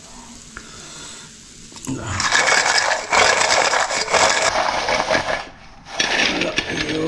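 Pieces of fried buffalo sukuti sliding and clattering off a stainless steel plate onto a serving plate. It starts about two seconds in as a dense rattling scrape that lasts about three seconds, and a little more scraping follows near the end.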